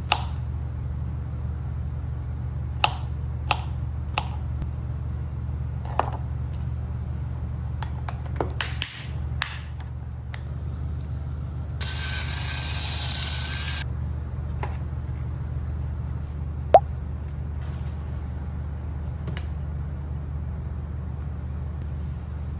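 A steady low hum with scattered light clicks and knocks. About twelve seconds in, a hiss lasts about two seconds.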